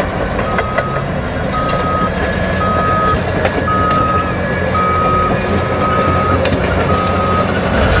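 Caterpillar crawler dozer's reversing alarm beeping about once a second, a single steady tone, over the steady low running of its diesel engine as the dozer backs up. The beeping stops near the end.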